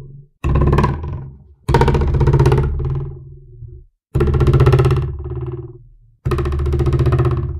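A ruler held down on a table edge with a long free end, flicked and released four times, each time twanging with a low buzzing tone that starts sharply and dies away within a second or two. The tail of a fifth twang fades out at the very start.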